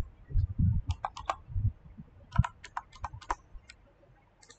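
Computer keyboard keys being typed: short sharp keystrokes in a few quick irregular clusters, entering a new amount into a text field.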